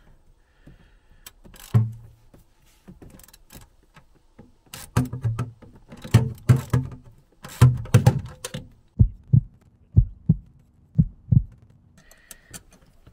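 Hand tools working on metal: clicks and clanks of a ratchet wrench loosening the bolts of a cover, then a run of dull low thumps near the end.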